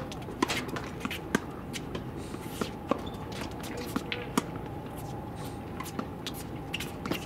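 Tennis rackets striking balls and balls bouncing on a hard court: a series of sharp, irregular pops over a faint steady hum.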